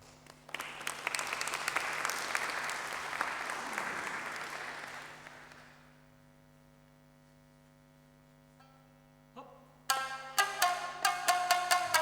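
Audience applauding for about five seconds, then dying away. About ten seconds in, Tsugaru shamisen begin playing: sharp, hard-struck plucked notes in a quick rhythm.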